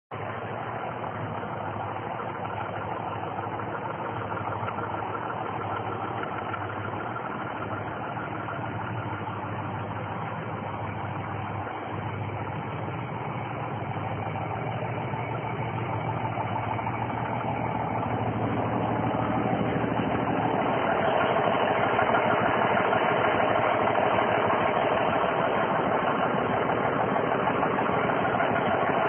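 1984 International Harvester cab-over semi tractor's diesel engine idling steadily, growing louder about two-thirds of the way through.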